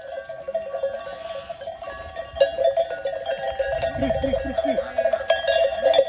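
Many livestock bells on a grazing sheep flock clanking and ringing together without a break.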